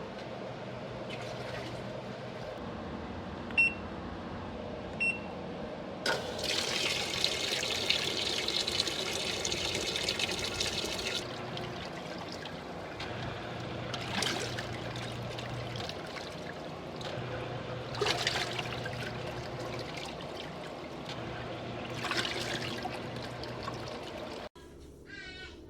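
Portable washing machine running with water sloshing and trickling in its tub, its motor humming in spells, with a louder rush of water for several seconds. Two short electronic beeps sound about four and five seconds in. About a second before the end the sound cuts off suddenly to something quieter.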